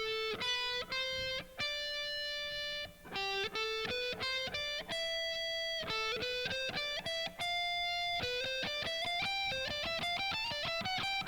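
Guitar playing a single-note C major scale run, picked one note at a time with a few notes held, and climbing quickly in pitch near the end.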